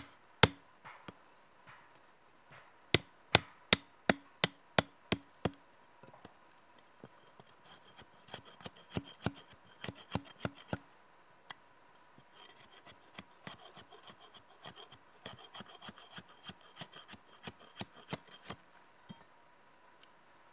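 Hatchet blade chopping and shaving a wooden stick: a run of sharp chops about three a second, then lighter, quicker taps and scraping as the stick is whittled down.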